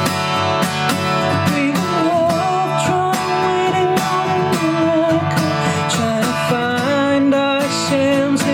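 Acoustic guitar strummed steadily, with a male voice singing long held notes over it.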